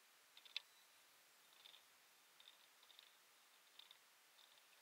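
Near silence: faint hiss with a few faint, short high clicks scattered through it, the sharpest about half a second in.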